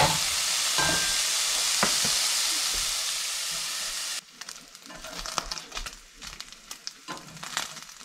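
Venison pieces sizzling loudly as they fry in butter in a pan, with a couple of clicks from stirring. About four seconds in the sizzle cuts off to a much quieter stretch of scattered clicks and taps from tongs moving the browned meat.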